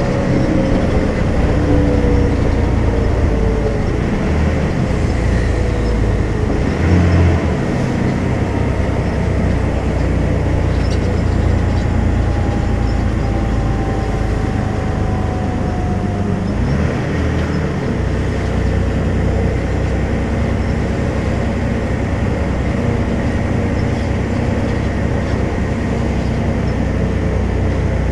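Volvo B12M bus's 340 hp diesel engine running under way, a steady low drone with two brief breaks in its note about 7 and 17 seconds in. A faint whine falls slowly in pitch over it twice.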